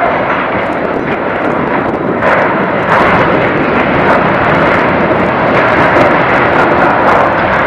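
Steel container gantry crane, brought down by explosive demolition charges, toppling onto the quay: loud, continuous crashing noise with many sharp cracks, growing louder about two and three seconds in.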